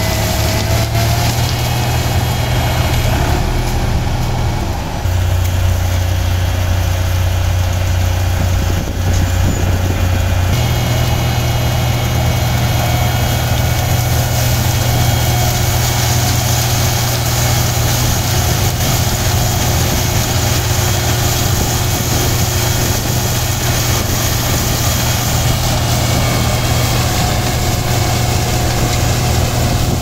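Diesel engines of a John Deere sugarcane harvester and the tractor beside it, running steadily under load while the harvester cuts cane. A loud, even low hum that shifts in pitch about five seconds in and again about ten seconds in.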